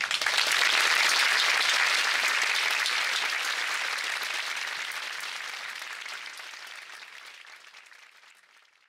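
Concert audience applauding, starting suddenly, loudest in the first couple of seconds, then slowly dying away to nothing near the end.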